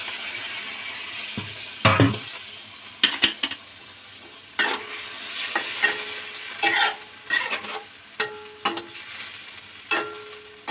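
Food sizzling in a hot stainless-steel wok with a honeycomb-textured surface, just after a splash of water. Starting about two seconds in, a metal turner knocks and scrapes against the pan about a dozen times as the food is stirred, and each knock leaves a brief metallic ring.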